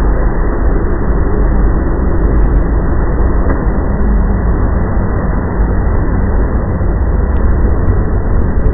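Loud, steady, low rumbling drone with no clear pitch or break: one of the unexplained 'strange sounds in the sky'.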